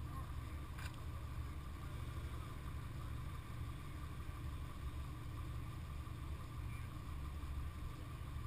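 Rally car's engine idling steadily, a low even rumble with a faint steady whine above it.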